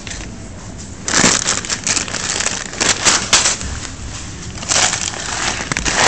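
Packaging crinkling and rustling as it is handled close to the microphone, in irregular loud bursts beginning about a second in.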